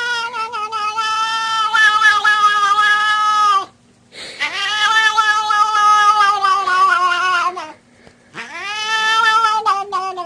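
A cat yowling in three long, drawn-out calls, each dropping in pitch as it ends, with short breaks between them.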